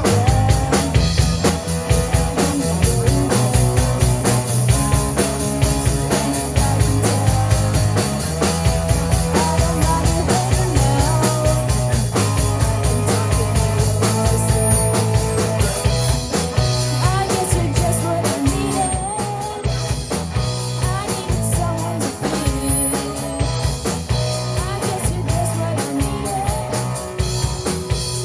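Rock music with a steady drum beat and sustained bass notes.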